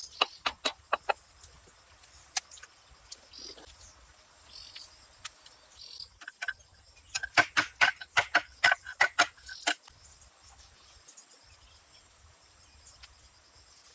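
Sharp taps of stone-wall work, stones knocked against stone as the mortared wall is laid: a few at the start, then a quick run of about a dozen in the middle. Faint bird chirps sound in the background.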